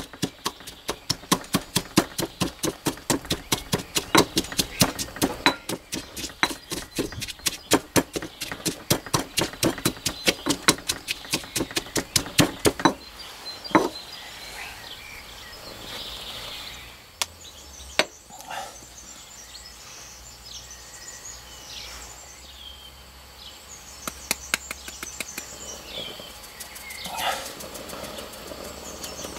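Granite pestle pounding a chilli, garlic and ginger paste in a granite mortar: a fast, even run of knocks, about four a second, that stops about halfway through, followed by a few single knocks. Birds chirp faintly in the background.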